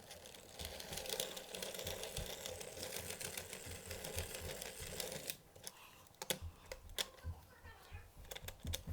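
Fast-forwarded sound of small-parts handling on a model locomotive: a dense rustling, chattering hiss for about the first five seconds, then scattered quick clicks and ticks.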